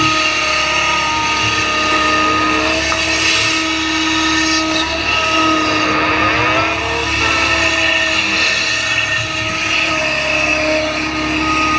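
Hydraulic excavator working hard, its diesel engine running loud and steady under a whining hydraulic pump as the machine swings and digs. The whine wavers and bends in pitch about six to seven seconds in.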